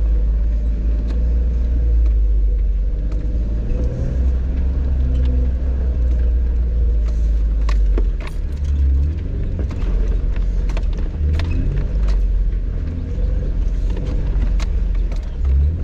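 Jeep driving slowly over a rough dirt off-road trail: a steady low engine and drivetrain rumble, with scattered sharp knocks and rattles from the rough ground, more of them in the middle stretch.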